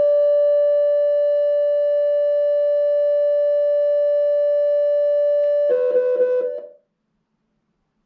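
A loud, steady, high held tone with a row of overtones, which breaks into a rapid warble near the end and then cuts off, leaving silence for the last second.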